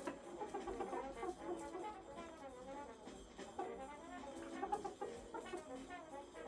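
Background music led by brass instruments, playing a busy run of short notes.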